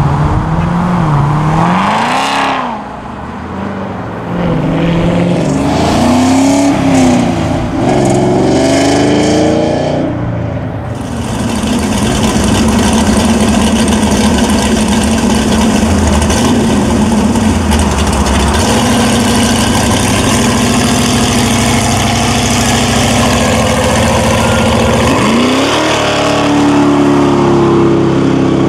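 Performance car engines revving as they drive off, their pitch rising and falling over the first ten seconds as a black C7 Corvette pulls past. Then a white second-generation Chevrolet Camaro's engine runs loud and steady at low speed before it accelerates hard near the end, its pitch climbing quickly.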